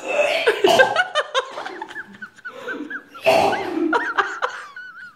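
People laughing: a run of short, high-pitched giggles, a few a second, then louder bursts of laughter about three seconds in.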